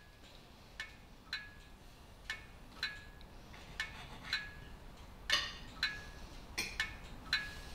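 Knife and fork clinking against a plate, about one strike a second, each with a short ringing tone, with two louder, longer clatters about five and six and a half seconds in.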